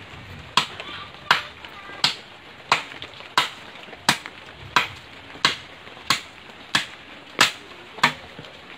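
Machete chopping into camachile branches: a steady run of about a dozen sharp chops, evenly spaced roughly one every 0.7 seconds.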